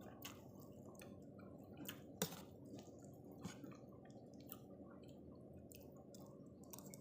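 Quiet wet mouth sounds of someone eating noodle soup: chewing and squishy smacks, a few each second, with a sharper click a little over two seconds in.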